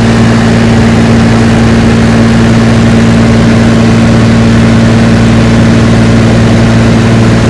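An engine running steadily at constant speed: a loud, even drone with a deep hum.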